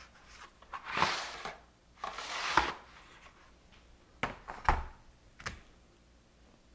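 Handling noises: two stretches of rustling and scraping, then a few sharp knocks as a chainsaw guide bar is laid down on a cardboard-covered counter.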